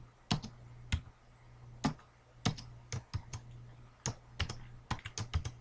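Computer keyboard keystrokes: single keys tapped about half a second to a second apart, then quicker typing over the last second and a half. A faint steady low hum runs underneath.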